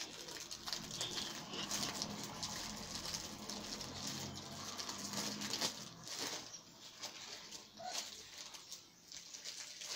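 Close, crackly rustling that comes on and off, busiest in the first six seconds and more broken after that.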